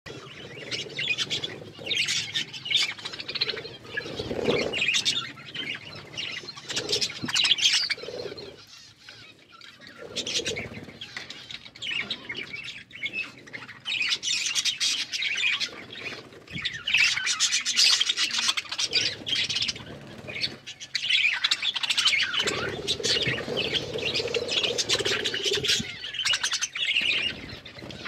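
A group of budgerigars chattering and chirping in busy bursts, with a short lull about nine seconds in.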